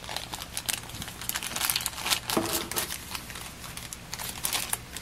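Thin clear plastic parts bag crinkling and crackling in irregular bursts as it is handled, with the servo horns and small accessories inside it.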